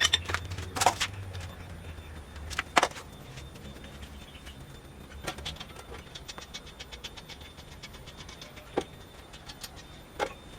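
Scattered sharp knocks and clicks, several loud ones in the first three seconds and a couple more near the end, over a low hum that fades after about three seconds.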